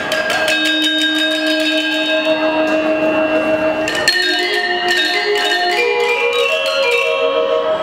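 Gender wayang quartet: bronze keys over bamboo resonators struck with mallets, playing rapid strokes over long ringing, shimmering tones. A sharp stroke about four seconds in starts a new run of notes.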